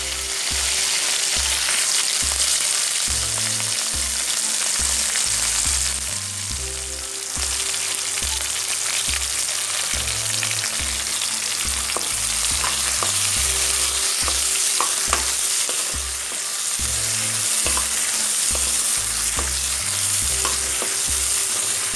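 Sliced onions and bay leaves sizzling in hot mustard oil in a kadai, stirred with a wooden spatula that scrapes and taps against the pan now and then.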